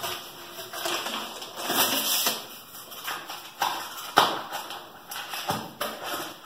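Packaging rustling and crinkling as a part is unwrapped by hand, with a few light knocks, two of them sharper about four and five and a half seconds in.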